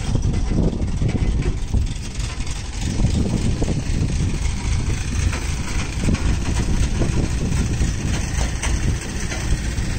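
Crane engine running steadily with a low rumble while it holds a stripped tractor body in its slings.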